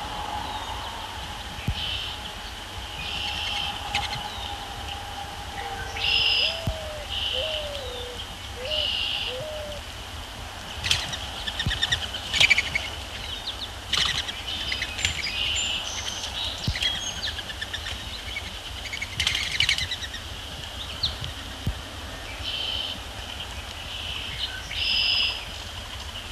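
Wild birds calling and singing, with short high-pitched calls repeated every second or two, and a few lower gliding notes partway through.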